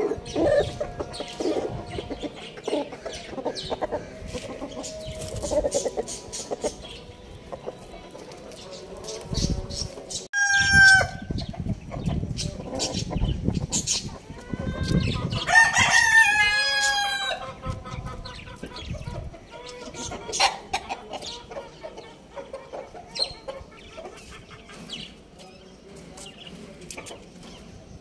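A rooster crowing twice, briefly about ten seconds in and then longer and loudest about fifteen seconds in, its pitch falling at the end. Around it are low clucking calls in the first few seconds and scattered sharp taps.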